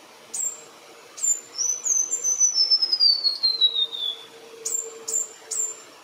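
White-browed Warbler (Myiothlypis leucoblephara) singing: a long run of clear, liquid whistled notes that start very high and step steadily downward over about two and a half seconds. Short, sharp, very high notes come before and after the run.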